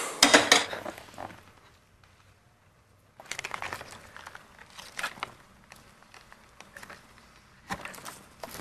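Light crinkling and crackling of a clear plastic tub being handled and tipped out, with scattered irregular clicks, starting about three seconds in.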